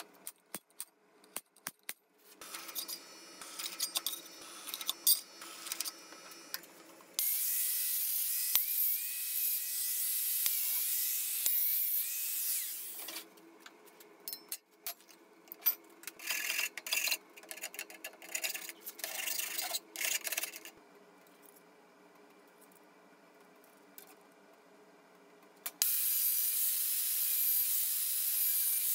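Clinks and scrapes of steel parts being handled, then an angle grinder runs for about six seconds with a steady high whine. Irregular metal clanks and scraping follow, then a quiet pause. Near the end the Bosch angle grinder starts again, cutting a thin steel strip.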